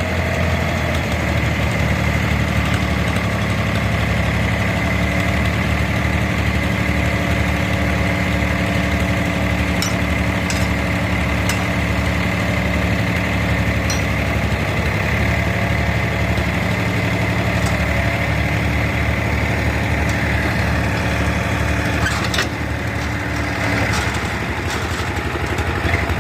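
Diesel engine running steadily at a constant speed with an even low pulse, a few light clicks on top; a little after the middle the sound drops slightly and its tone shifts.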